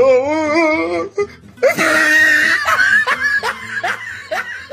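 Loud laughter in quick repeated bursts, with music underneath; a wavering, warbling voice opens it.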